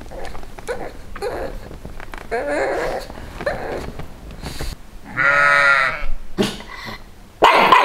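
Sheep bleating: one loud, wavering bleat about a second long, about five seconds in, with softer calls before it. Near the end a dog starts barking.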